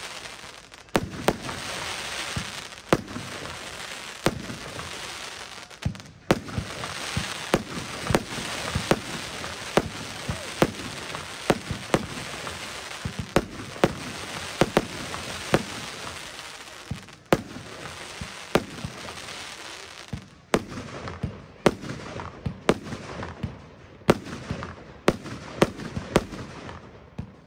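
Röder "Massive Escape" firework battery firing shot after shot: sharp bangs, often one or two a second, over a steady hiss and crackle of rising and bursting glitter stars. In the last several seconds the hiss thins and the bangs stand apart.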